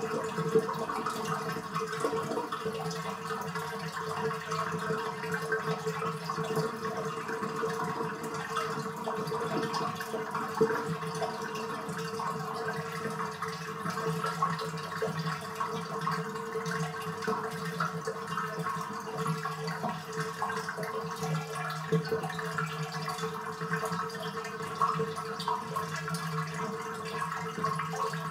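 Bathtub draining: water running steadily down the open drain, with a faint held tone under it and small irregular spikes throughout.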